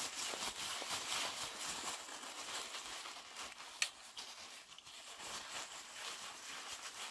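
Paper towel rustling and crinkling as it is rubbed over a pair of eyeglasses to dry them, with one sharp click about halfway through.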